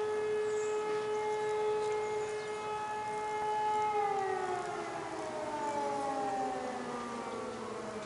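Civil defence siren sounding a steady tone. About halfway through, its pitch starts falling slowly as it winds down.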